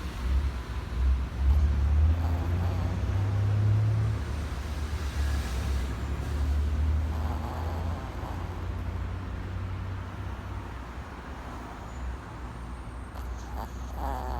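Yorkshire terrier snoring in its sleep, a low rumble that is loudest in the first few seconds and then eases. The snoring is heavy for such a small dog.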